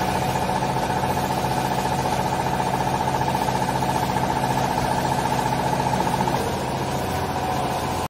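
Hydraulic power unit of a vertical used-clothes baler, an electric motor and pump, running with a steady drone. It drops slightly in level about six seconds in.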